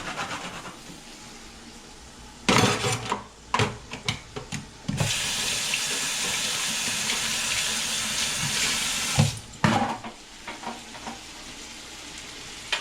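Kitchen tap turned on and running for about four seconds, then shut off abruptly, with the clatter of dishes or utensils just before and just after.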